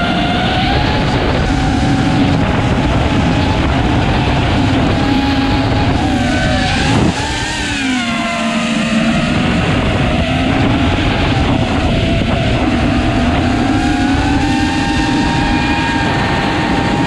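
FPV racing quadcopter's brushless motors whining under heavy wind rush on the onboard camera's microphone, the whine gliding up and down with throttle. About seven seconds in the rush drops off suddenly and the whine glides down as the throttle is cut, then climbs back as power is added.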